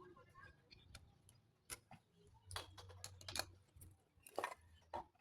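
Irregular light clicks and taps, about eight over a few seconds, with a faint low hum under the second half.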